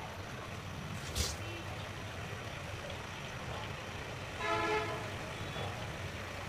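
Steady hiss of milk simmering in a pan on a gas burner. A vehicle horn gives one short toot about four and a half seconds in, and there is a single click about a second in.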